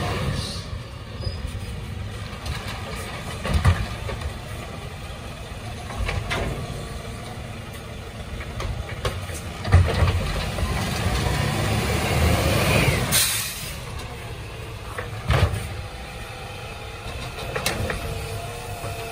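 Side-loader garbage truck's diesel engine running as it approaches and pulls up, with a short air-brake hiss about two-thirds of the way through. Several sharp clunks come from the truck and its bin-lifting arm as it grabs and raises a wheelie bin near the end.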